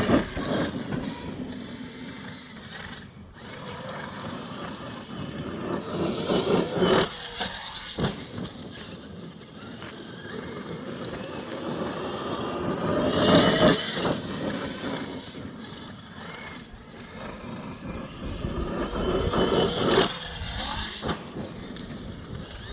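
Traxxas X-Maxx electric RC monster truck running laps on a dirt track: its brushless motor whine and tyre noise swell and fade three times, roughly every six to seven seconds, with a sharp knock about eight seconds in.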